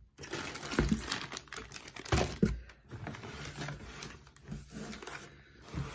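Hands rummaging in a shipping box: irregular rustling and crackling of paper and plastic packaging as items are dug out, with a few sharper knocks.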